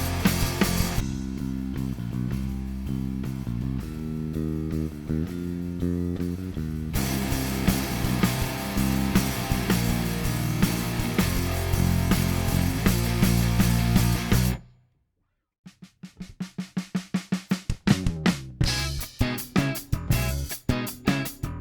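Lakland Skyline 55-02 five-string active electric bass playing a groove with drums. Everything cuts out about 15 seconds in for about a second, then comes back as a quick run of short clicking strokes that builds back into the full groove.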